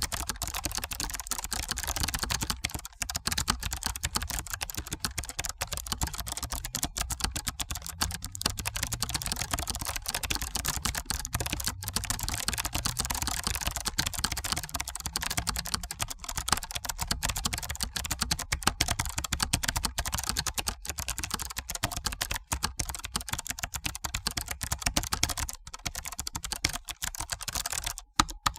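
Fast, continuous typing on a computer keyboard: a dense stream of key clicks, with a brief pause near the end.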